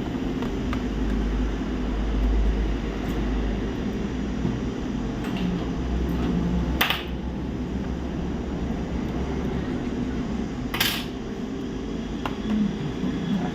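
Small metal clinks and scrapes of tools and parts being handled on a repair bench, with two louder short scrapes about seven and eleven seconds in, over a steady low hum.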